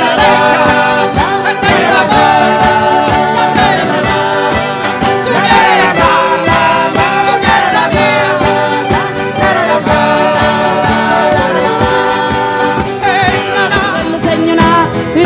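Live Salento folk band music: singing over a fast, even percussion beat.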